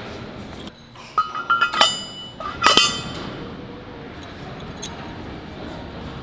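Metal tiltrotator gear parts clinking as they are handled and set down: a handful of sharp knocks between about one and three seconds in, each with a short metallic ring, the loudest near the middle.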